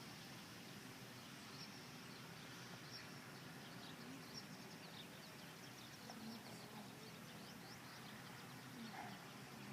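Faint steady background noise with scattered short bird chirps, high and quick, throughout.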